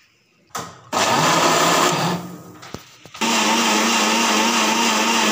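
Electric countertop blender liquidising chunks of peach, mint leaves and water. It starts about a second in and runs for about a second, drops away, then starts again near the three-second mark and runs steadily at full speed with an even motor hum.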